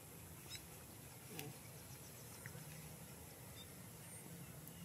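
Near silence: faint outdoor ambience with a few short, faint chirps and clicks scattered through it.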